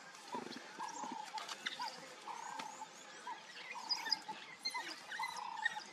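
African wild dogs twittering: a busy stream of short, high-pitched chirps and squeaks over a run of short, evenly repeated calls.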